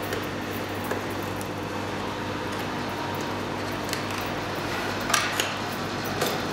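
Light clicks and taps of fingers pressing and sliding the panels of a hand-carved wooden puzzle box, with a few sharper clicks near the end, over a steady low hum.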